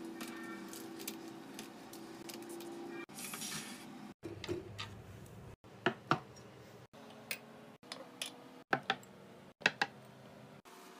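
A series of light clicks, taps and knocks as household items are set down by hand: coffee capsules dropped into a bamboo drawer, a ceramic vase and a glass jar mug placed on a wooden shelf. The audio is spliced from short clips with abrupt cuts between them, and a steady low hum runs under the first few seconds.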